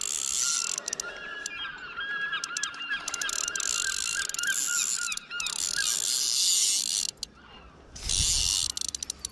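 Spinning reel working against a hooked mullet: line pulled off against the drag with a thin wavering squeal, and the reel's gears whirring in spells of a second or two with short pauses.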